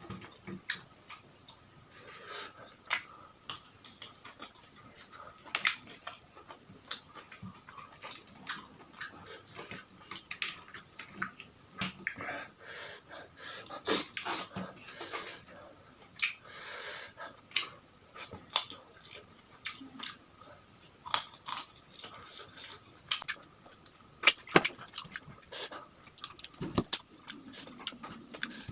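Close-miked eating sounds: irregular chewing, crunching and mouth smacks of someone eating fried catfish and raw vegetables by hand, with many sharp clicks scattered throughout.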